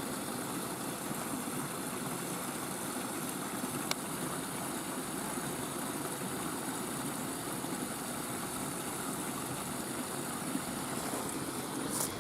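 Steady rushing of water from a small waterfall, an even hiss that does not change.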